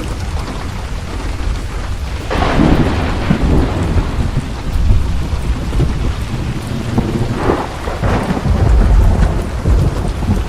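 Thunderstorm: steady heavy rain with deep rolling thunder, and two sharper cracks of thunder, about two seconds in and again about seven seconds in.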